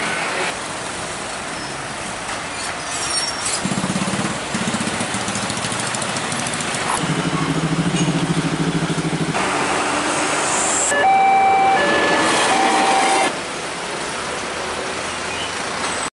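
Road traffic at close range: heavy truck engines running and passing, with a steady low engine hum in two stretches. The sound changes abruptly several times. In the last third a held, horn-like tone sounds on and off for about two seconds.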